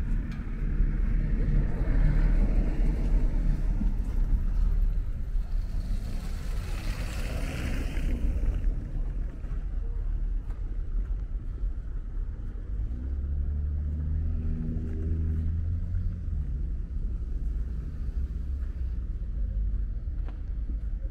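Street traffic: a steady low rumble of vehicles, with one passing with a hiss about six to eight seconds in and an engine's hum from about thirteen to sixteen seconds in.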